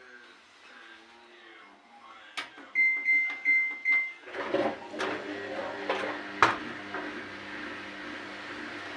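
Samsung washing machine beeping four times on one high note after a button click, then its drum motor starting up with a steady low hum and a few knocks as the wet towels shift in the drum.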